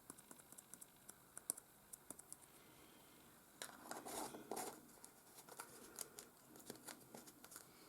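Faint handling sounds of small decorative pieces being added to mixed epoxy resin: scattered light clicks, with a couple of short scratchy rustles about three and a half to five seconds in.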